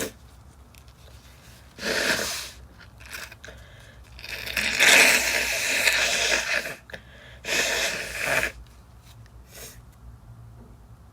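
A woman's stifled sneezing fit set off by sawdust: several held-in sneezes and sharp breaths, the longest and loudest about halfway through.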